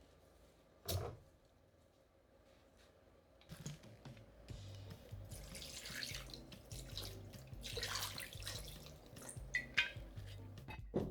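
Water running or being poured, swelling in two surges, over quiet background music, with one sharp knock about a second in.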